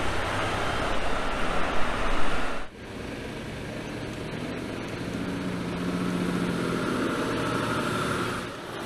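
2021 Mercedes-Benz Arocs 8x8 tipper truck's diesel engine running as the truck passes close by on a gravel track, loudest about two seconds in. It drops off suddenly, then continues further away with a steady engine note as the truck climbs over a rise toward the listener.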